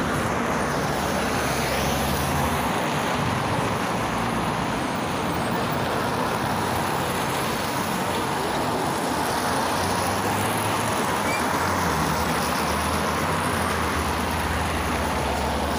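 Steady road traffic: passing cars and tyre noise. In the second half a low engine hum grows stronger as a route minibus pulls up close to the curb.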